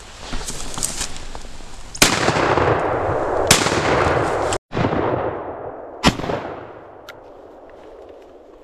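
Shotgun shots: two about a second and a half apart, then a third about two and a half seconds later. Each is followed by a long echo rolling through the forest, and the last one dies away near the end.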